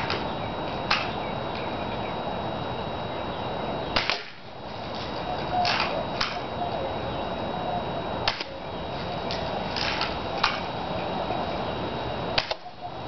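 Red Ryder lever-action BB gun being fired at cans: sharp shots about every four seconds, with lighter clicks in between, over a steady hiss.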